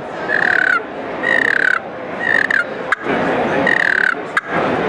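Scratch box turkey call worked as a purr: about four short, raspy rolling notes, each around half a second long, with rough scraping between them, imitating a turkey's purr.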